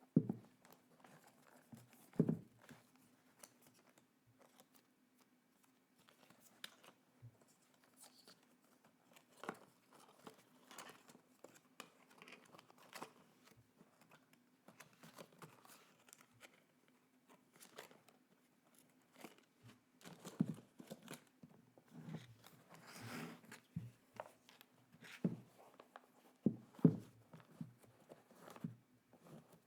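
Packaging being handled and opened by hand: on-and-off crinkling, rustling and tearing with small taps and knocks, over a faint steady low hum.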